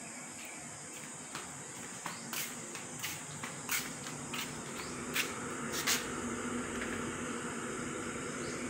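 Footsteps on a bare concrete floor, a string of sharp irregular ticks, then from about five seconds a steady low hum with a light hiss.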